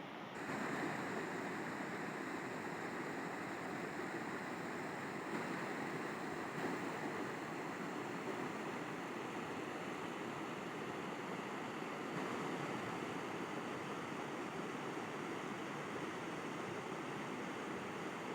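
A river flowing: a steady rush of water, a little louder from about half a second in.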